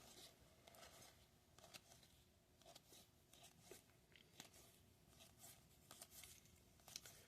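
Near silence with faint scattered clicks and rustles of trading cards being handled and flipped through by hand.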